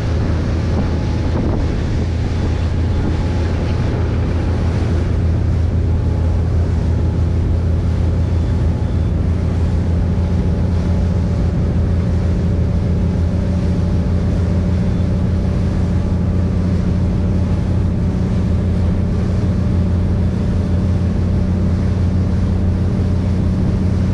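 Parasail tow boat's engine running steadily under way, a low even hum, with wind buffeting the microphone and the rush of the wake. About ten seconds in, a slightly higher note joins the engine hum.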